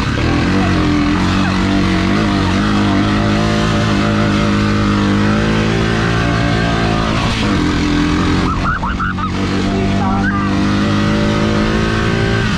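Honda ATV engine running steadily while riding along a trail, heard from the rider's seat, its pitch rising and falling a little with the throttle.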